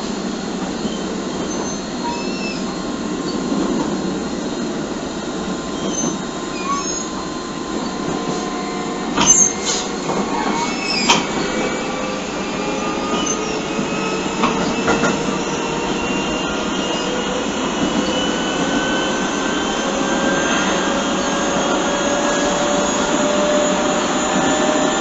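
Keio 7000 series electric train with field-chopper control running, heard inside the car through a low-quality phone recording. The motor and gear whine climbs slowly in pitch over the second half as the train picks up speed, with a few sharp clicks from the running gear near the middle.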